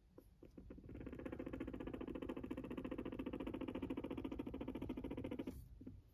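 Silkie guinea pig purring while its head is stroked: a low, rapid, even vibrating sound that starts about a second in and stops shortly before the end, after a few faint clicks.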